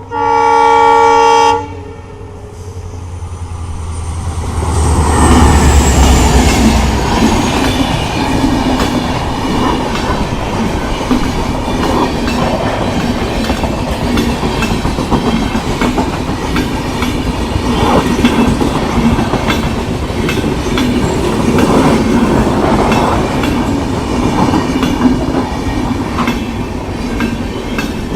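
Indian Railways WDP4D diesel locomotive 40301, with its EMD 16-cylinder two-stroke engine, sounding its horn in one loud blast of about a second and a half, then passing at speed. The engine's deep rumble swells a few seconds in, with a high whine falling in pitch as it goes by. The steady clickety-clack of the coaches' wheels over the rail joints follows.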